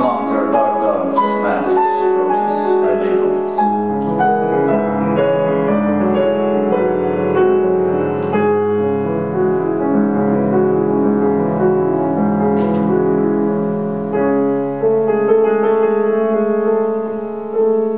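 Grand piano played solo: a dense, slow passage of many ringing notes that overlap and sustain into one another.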